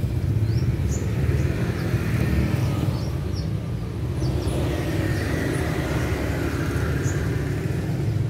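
Steady low rumble of road traffic, with short, high, rising chirps from a caged kolibri ninja (van Hasselt's sunbird) scattered through it, a few at a time.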